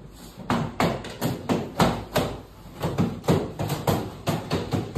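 Background music with a fast drum beat, about three hits a second.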